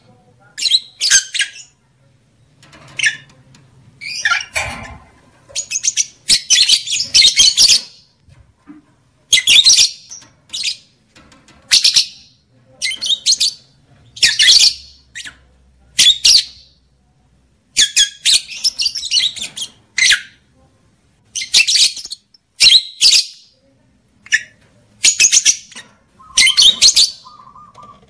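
Lovebirds giving loud, high-pitched, harsh squawking calls in quick runs with brief pauses between them. This is a lovebird mating-call lure, played to rouse breeding condition in lovebirds.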